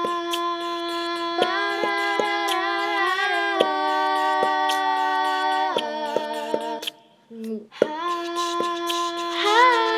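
Slow ambient music of long, layered held notes, apparently sung or hummed by a woman's voice, with faint regular clicks; it cuts out briefly about seven seconds in, then resumes.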